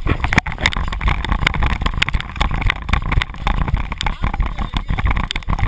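Rumbling, rustling handling noise on a body-worn action camera, with many small knocks and scrapes as it shifts and rubs against clothing, and wind on the microphone.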